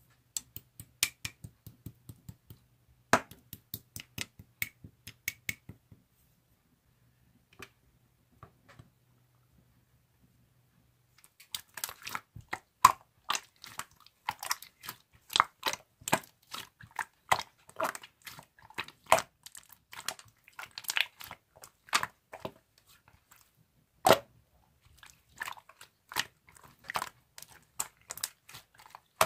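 Slime being squished and poked by hand, giving quick sticky clicks and pops. There is a pause of several seconds about six seconds in, then a dense run of clicks and pops, with one loud pop a little before the end.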